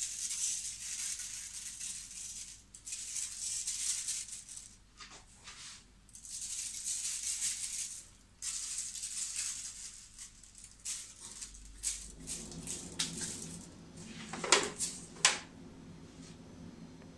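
Seed topping scattered by hand over pastries in copper pans, falling with a dry hiss in several spells of a second or two. Near the end, two sharp metallic knocks as the pans are shifted on the sheet tray.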